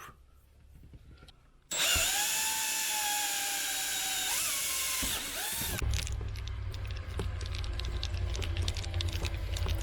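Power drill spinning up and drilling a hole through the van's roof for the fan's mounting screws; its steady whine dips in pitch twice as the bit bites, then gives way to a lower rumble with rapid clicking.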